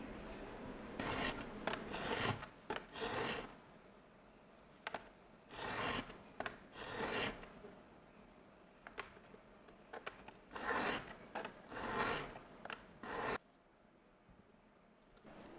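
Repeated rubbing or scraping strokes in three groups of a few strokes each, with short pauses between the groups.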